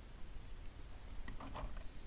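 Small plastic Lego Technic parts being handled and fitted together, giving a few short soft clicks about halfway through over a low steady rumble of room noise.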